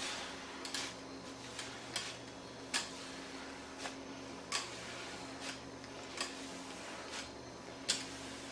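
Long-handled floor scraper scraping and knocking against a tile floor in short, irregular strokes, about one or two a second, over a steady low hum.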